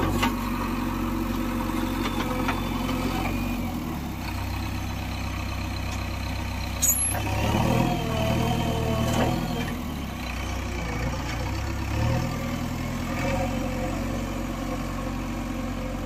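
JCB 3DX Xpert backhoe loader's 49 hp diesel engine running steadily while the machine works soil, its note dipping and rising a few times as the load changes. A single sharp click about seven seconds in.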